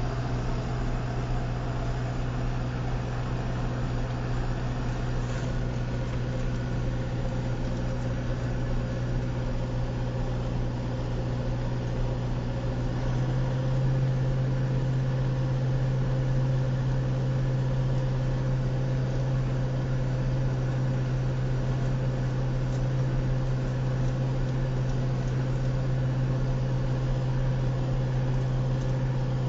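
John Deere 6410 tractor's diesel engine running steadily while driving through a field, heard from inside the cab as a low, even drone that grows a little louder about halfway through.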